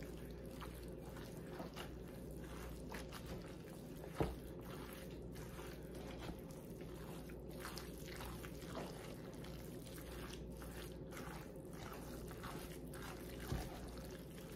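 Spoon stirring chunky tuna salad with Miracle Whip in a plastic tub: faint wet squishing and scraping, with a sharper knock about four seconds in and another near the end.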